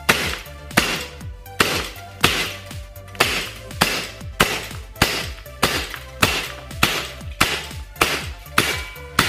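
CO2-powered airsoft gun firing shot after shot, about fourteen sharp cracks at a slightly uneven pace of one every 0.6–0.8 s, running on a Crosman CO2 cartridge during a shot-count and velocity test. Music plays underneath.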